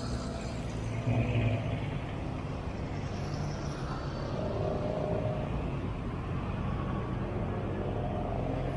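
Street traffic: a steady rumble of vehicle engines running on the road alongside, a little louder about a second in.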